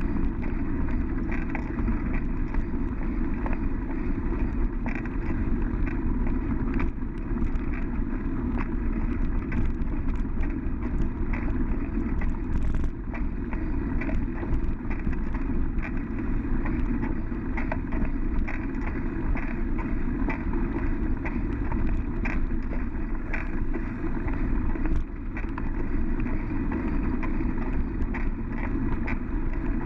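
Bicycle riding along a dirt trail: a steady low rumble of tyres and wind, with frequent small rattles and clicks from bumps in the track.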